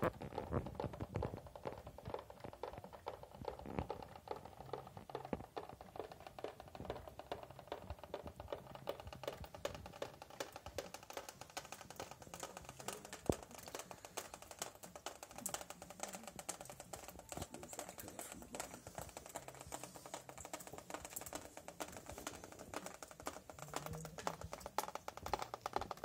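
Water from a leaking ceiling dripping fast into plastic bowls and onto the floor, a dense patter of drips, with faint background music.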